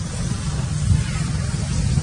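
Wind buffeting the microphone outdoors: a steady low rumble with a fainter hiss above it.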